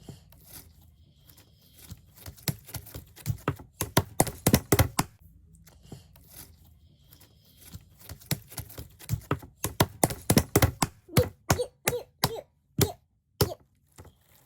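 Slime being squeezed and worked by hand, making sharp wet pops and clicks, a quick flurry first, then a run that settles to about two pops a second near the end.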